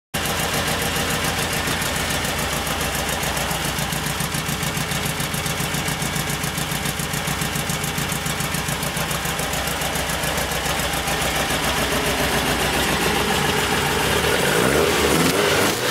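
Volkswagen Type III air-cooled flat-four engine, fitted with an ISP West over-the-top exhaust, idling steadily with an even pulsing exhaust beat. The sound grows a little louder near the end.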